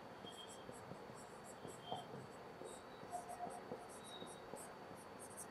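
Marker pen writing on a whiteboard: faint, short strokes one after another as words are written.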